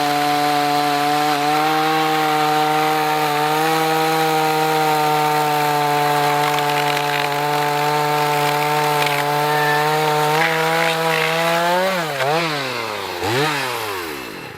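Small two-stroke chainsaw with a freshly sharpened chain running at full throttle, cutting through a log of firewood at a steady pitch. About twelve seconds in the engine speed dips and recovers a couple of times, then falls away as the throttle is released near the end.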